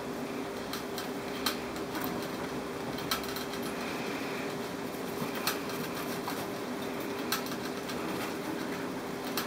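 A steady low mechanical hum, with scattered small clicks and rustles as a hand and baby rats move about in wood-shaving bedding and against a plastic hideout.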